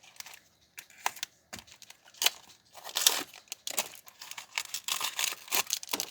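Plastic and paper packaging being torn open and crinkled by hand: irregular crackles and rips, sparse at first and coming thick and fast from about halfway on.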